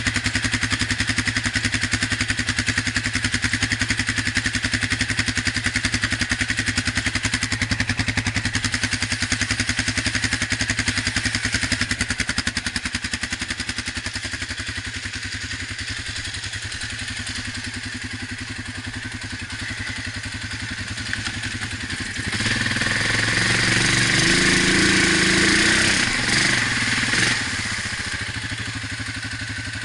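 ATV engine idling steadily, then revved about three-quarters of the way through: louder for about five seconds, with pitch rising and falling, before settling back to a steady low run.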